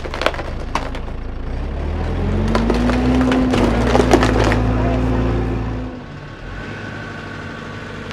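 Diesel engine of a JCB 535-95 telehandler running and revving up under load as its tyre rolls onto a white door, which cracks and splinters repeatedly under the weight. The engine falls back about six seconds in, leaving a quieter steady machine hum.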